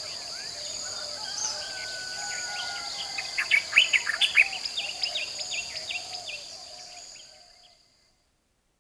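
Tropical forest dawn chorus: many birds calling over a steady high-pitched insect drone, with a cluster of loud, sharp bird calls about halfway through. The whole chorus fades out near the end.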